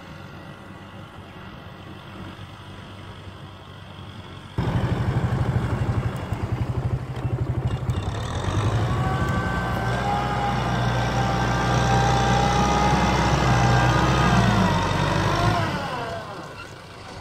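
Farm tractor's diesel engine, faint at first, then suddenly much louder about four and a half seconds in, running hard with a steady hum and a high whine. Near the end the whine bends down and the engine eases off.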